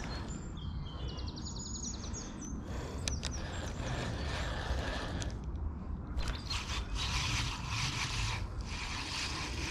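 Spinning reel being wound as line is retrieved, with a quick run of fine mechanical ticks about a second in, over a steady low rumble of wind on the microphone.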